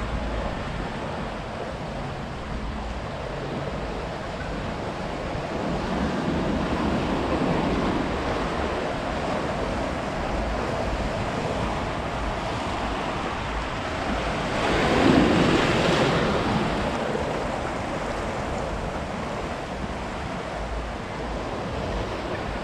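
Ocean surf washing steadily onto a beach in slow swells, with one louder wave breaking about two-thirds of the way through. Wind rumbles on the microphone.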